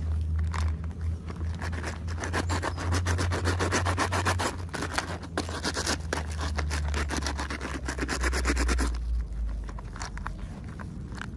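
Dense, rapid scratching and rubbing, as of packaging being handled and rubbed during unboxing, over a steady low hum; the scratching stops about nine seconds in.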